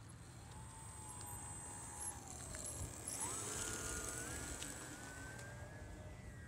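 Electric motor and propeller of a model RC plane whining. The pitch sinks slowly for the first few seconds, then jumps and climbs in steps from about three seconds in as the throttle is opened for the takeoff run, over a low rumble of wind.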